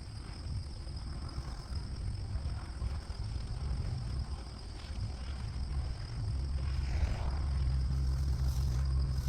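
Diesel engine of a Toro TX1000 mini skid steer running steadily, with a low hum that gets louder about six seconds in.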